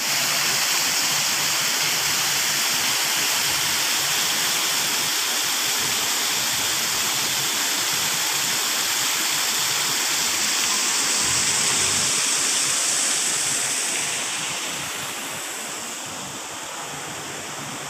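Water fountain: water falling from under large steel spheres into a shallow pool, a steady rushing splash. It grows quieter from about fourteen seconds in.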